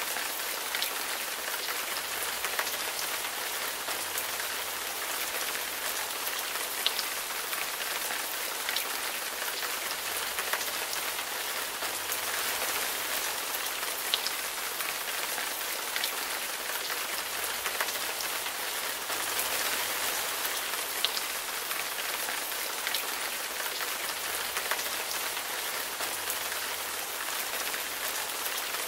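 Steady rain falling, an even hiss, with occasional sharp ticks of single drops landing close by.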